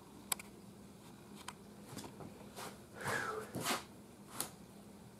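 Faint handling noises: a few light, scattered clicks and two short rustles about three seconds in.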